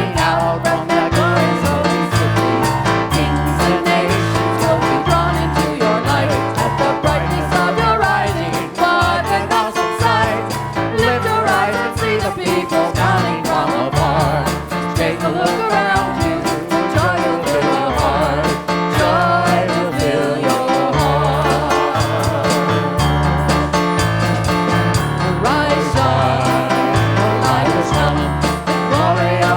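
Live worship music: a band with bass and guitar playing a song with a steady beat, with voices singing over it.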